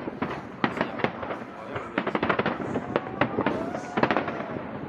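Fireworks display: a rapid, irregular string of sharp cracks and bangs, thickest in the second half, with voices in the crowd underneath.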